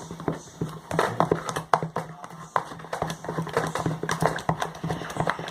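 Spatula stirring glue and green dye in a container: quick, irregular sticky clicks and taps, with a faint steady low hum underneath.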